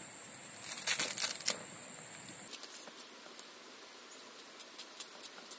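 Large knife chopping a bunch of fresh green leaves on a banana leaf: a cluster of sharp cuts about a second in, then lighter scattered knife taps. A steady cricket trill runs through the first half, and the background changes abruptly about halfway through.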